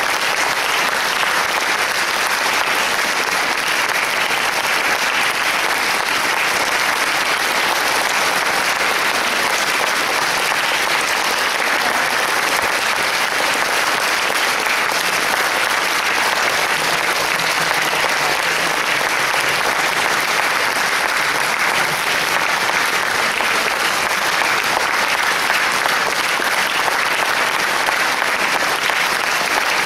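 Concert audience applauding, a steady, sustained applause.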